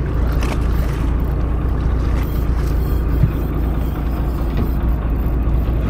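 Boat's outboard motor running steadily at low speed, a continuous low rumble with water and wind noise over it.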